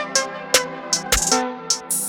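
Electronic background music: a drum-machine beat with crisp hi-hat hits over held synth notes.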